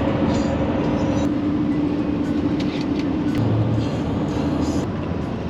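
Road and engine noise of a Mercedes Sprinter camper van driving at speed: a steady drone with a low hum.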